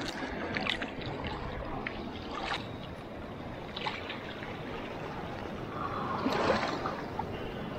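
Shallow seawater splashing and sloshing around hands and legs as greenlip mussels are pulled off submerged rocks, with a few short clicks and a louder splash about six seconds in.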